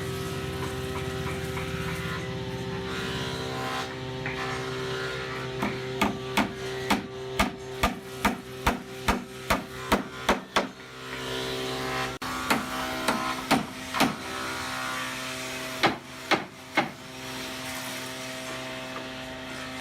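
Hammer blows on wood in a quick run of about a dozen strikes, roughly two to three a second, then a few more after short pauses, over a steady machine hum.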